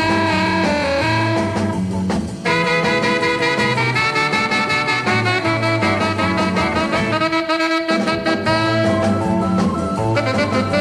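Late-1950s instrumental rock and roll recording, a saxophone carrying the melody over bass and drums, with a short break about two seconds in.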